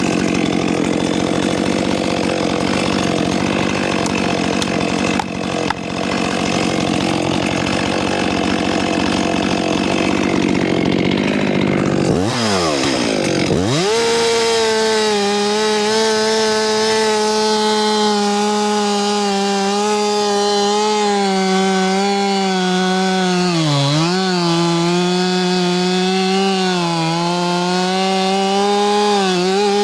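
Gas chainsaw running at high revs while cutting into a tree. About twelve seconds in, the engine drops sharply and revs back up, then holds a higher, steady pitch with a couple of brief dips.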